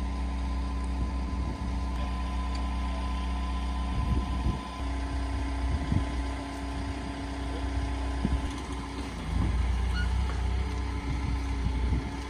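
An engine idling steadily while hydraulics lower and fold the elevator of a sugar beet cleaner-loader. Several clunks and knocks come from the moving elevator from about a third of the way in.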